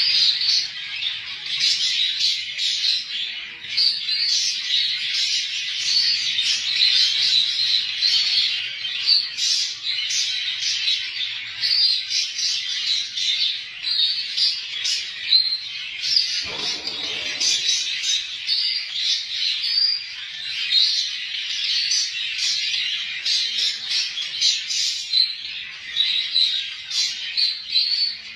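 Many small cage birds chirping in a dense, continuous chatter of short high chirps. About two-thirds of the way through there is a brief lower-pitched sound.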